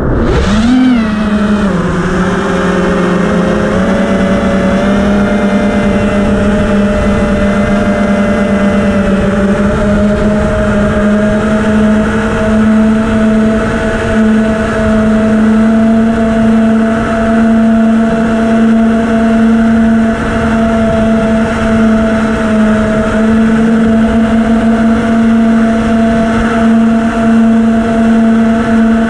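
FPV quadcopter's electric motors and propellers whining, heard through the onboard camera's microphone. They spin up for takeoff with a brief jump in pitch about a second in, then hold a nearly steady pitch in cruising flight, with slight rises and dips.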